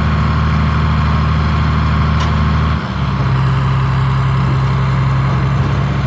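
Six-cylinder diesel engine of a John Deere 4440 set up as a pulling tractor, running steadily while powering a Claas round baler. About three seconds in, the engine note dips and changes abruptly as the baler's tailgate opens to eject a finished round bale.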